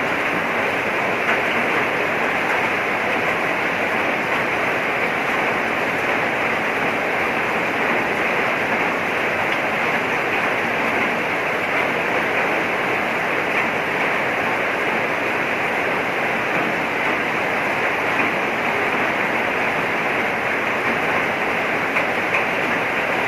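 Heavy rain falling: a steady, dense rush that does not let up or change.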